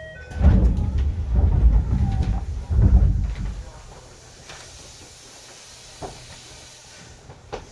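Heavy low rumbling knocks inside an Eidan 7000 series subway car, lasting about three seconds, followed by a faint hiss and a couple of light clicks near the end.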